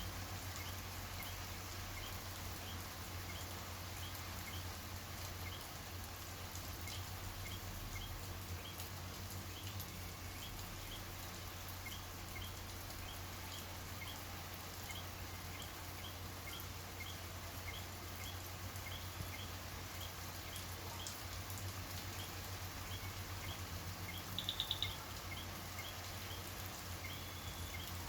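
Steady rain pattering, with short high chirps from a night animal repeating about twice a second. A brief, louder trill comes about three-quarters of the way through.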